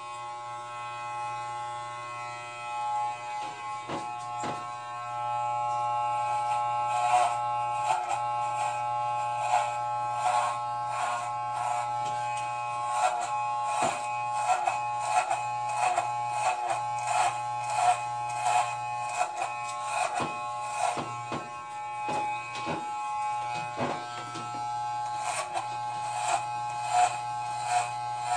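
Electric hair clippers switched on and buzzing steadily while shaving a head. Frequent short rough crackles come through as the blades cut through thick hair at the nape.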